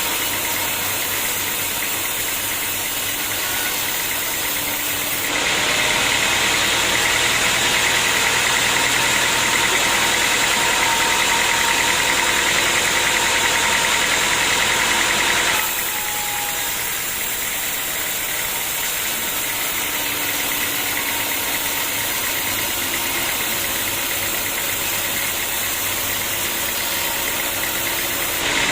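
Sawmill machinery running steadily. About five seconds in, a louder, hissier stretch with a faint whine begins, as of the saw in a cut, and it stops abruptly about ten seconds later.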